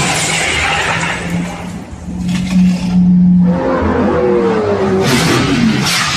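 Car engine revving: a steady held note that grows louder and cuts off about three and a half seconds in, followed by falling whines as the revs drop.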